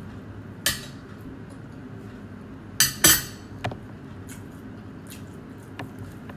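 Eating by hand at a plate of fried tilapia: a few short, sharp clicks and crackles, the loudest about three seconds in, over a steady low hum.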